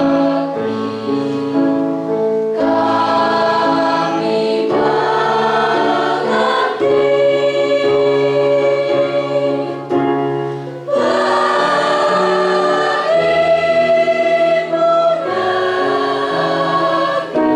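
A school choir of mixed boys' and girls' voices singing in slow held chords, moving to a new chord every couple of seconds.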